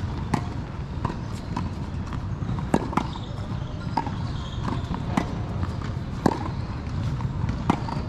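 Tennis rally: sharp pops of the ball striking racket strings and bouncing on the hard court, coming every second or so over a steady low rumble.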